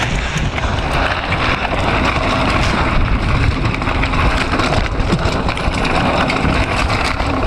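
Mountain bike (a Giant Talon 1 hardtail) descending a dry dirt and stone trail: tyres rolling and crunching over loose ground, the bike rattling over the bumps, and wind rushing on the camera microphone, all steady and loud throughout.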